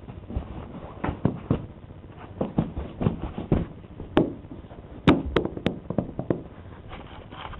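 Teacup poodle puppy chewing and batting at a toy: a string of irregular light knocks and taps, with a few sharper clicks in the middle.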